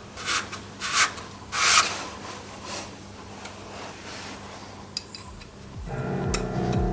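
Hand abrasion on a metal part under restoration: three loud rasping strokes in the first two seconds, then fainter rubbing. Music comes back in near the end.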